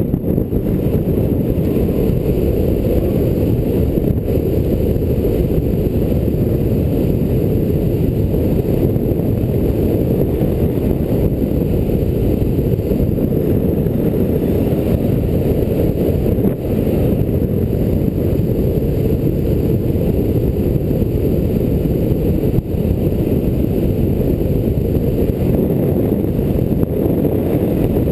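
Steady, dull rush of wind buffeting an action camera's microphone during a fast speedriding descent on skis, dipping briefly twice.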